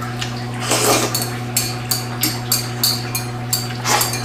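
A person eating noodles and broth from a small bowl held up to the mouth: a quick run of short, sharp eating sounds, about four a second, in the middle, with a longer swell about a second in and another near the end. A steady low hum runs underneath.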